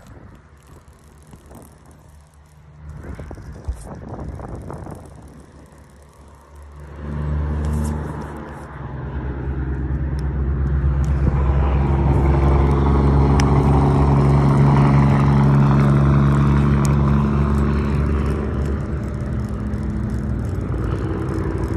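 A truck driving by on a road, its engine drone coming in about seven seconds in, growing loud and holding for several seconds, then easing off a little.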